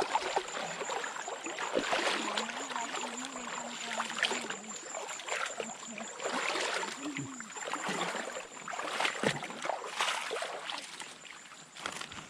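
Wading through a shallow stream: water sloshing and splashing with each stride as legs push through knee-deep water, in an uneven rhythm that eases off near the end as the walkers come out onto the bank.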